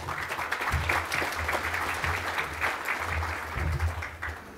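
Audience applauding to welcome a speaker to the podium, dying away near the end.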